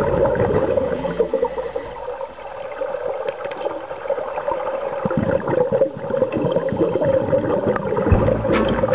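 Scuba divers' exhaled bubbles gurgling and streaming up from their regulators, heard underwater, with a few sharp clicks near the end.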